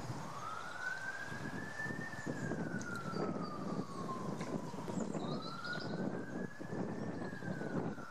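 A police siren wailing, each rise taking about two seconds and each fall about three, twice over. Under it, a chorus of frogs croaks continuously.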